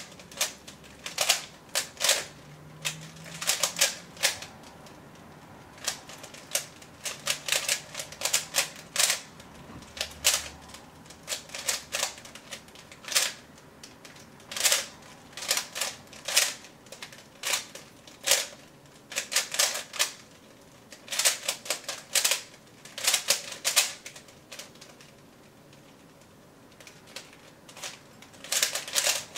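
3x3 Rubik's cube being turned at speed during a solve: rapid plastic clicking of face turns in quick bursts, broken by short pauses.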